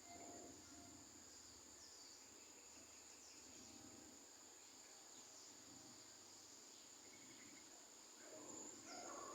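Faint outdoor ambience: a steady high-pitched insect drone, with short falling chirps every second or two.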